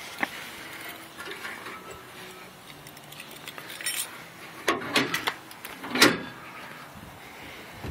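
Steel hood of a 1967 Chevelle being unlatched and raised: a cluster of metallic clicks about five seconds in and a louder metal clunk about a second later, over handling rustle.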